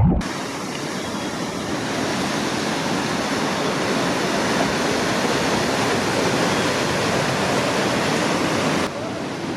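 Steady rush of breaking surf and whitewater. It starts abruptly and changes slightly just before the end.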